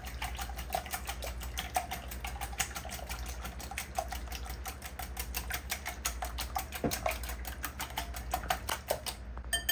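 Wire whisk beating eggs and heavy cream in a ceramic bowl: a fast, even run of clicks as the tines strike the sides of the bowl.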